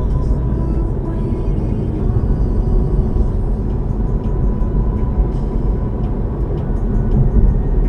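Steady road and engine rumble of a car driving, picked up by a dash cam inside the cabin.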